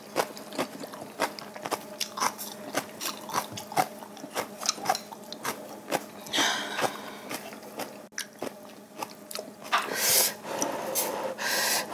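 Close-miked eating sounds: chewing, and chopsticks and tongs clicking against bowls and dishes, with longer slurps of kalguksu noodles about halfway through and again near the end.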